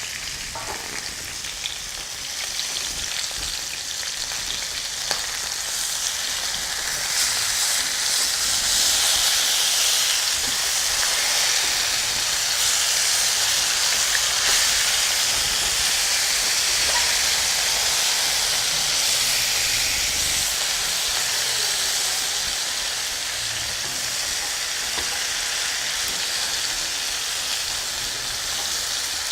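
Marinated chicken leg pieces frying in hot oil in a pan, a steady sizzle that grows louder about seven seconds in, with a few light clicks.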